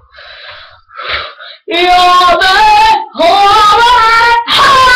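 A young boy singing loudly in three long, high held notes, starting a little under two seconds in after a few softer, short vocal sounds.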